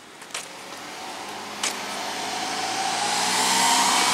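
A small white kei car drives past at close range, its engine hum and tyre noise swelling steadily as it approaches and is loudest near the end. A couple of footsteps click on the pavement early on.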